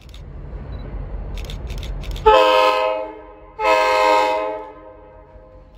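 Diesel locomotive air horn sounding two blasts of about a second each, the second a little longer, over the low rumble of the approaching train.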